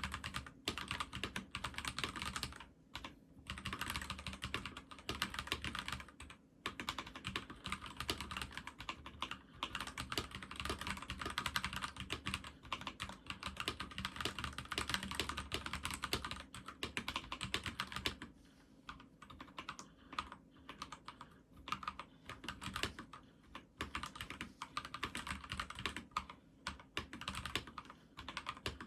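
Fast typing on a Magegee MK Star 98 mechanical keyboard with Magegee's own linear switches, a more "clocky" than clicky key sound. The strokes come in a dense stream with a few short pauses, then thin out into sparser typing about two-thirds of the way through.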